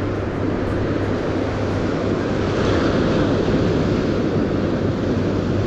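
Steady rush of ocean surf with wind buffeting the microphone, and a constant low hum underneath.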